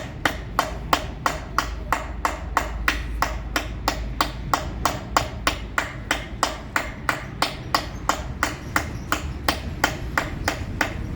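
Hammer tapping a chisel into stone in steady hand engraving, about three even metal-on-metal strikes a second, stopping near the end, over a low hum.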